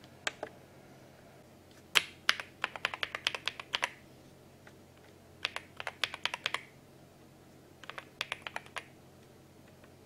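Keystrokes on an INFIVERSE INFI75 mechanical keyboard: two clicks near the start, then three quick runs of typing, the first the longest, with short pauses between.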